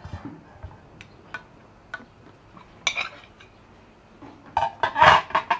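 A plate and a metal spoon clinking and scraping against an aluminium cooking pot of cabbage rolls as the plate that weighed the rolls down is lifted out. There are scattered light clinks, then a louder quick run of clinks near the end.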